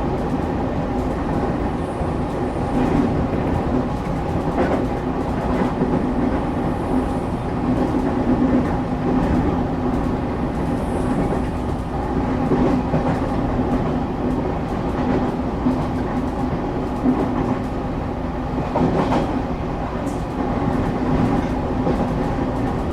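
Inside a moving train car between stations: a steady rumble of wheels on the track with a constant hum and a few clicks from the rails.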